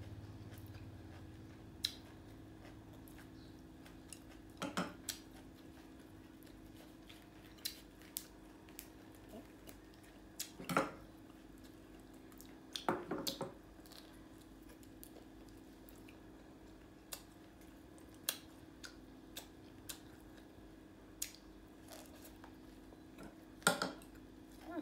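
Eating at a table: scattered sharp clicks and taps of chopsticks and a spoon against small ceramic bowls, with soft chewing between them. A steady low hum runs underneath.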